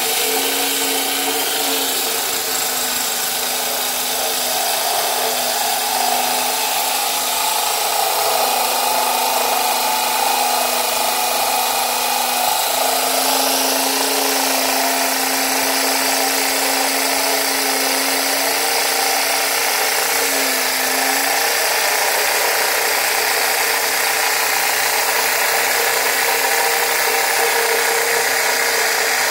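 Cordless drill spinning a core bit that grinds a hole into granite: a steady drilling whine over a grinding rasp, its pitch dipping briefly a few times.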